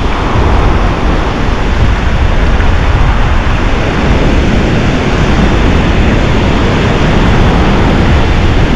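Steady wash of ocean surf with heavy wind rumble on the microphone, a loud continuous noise without breaks.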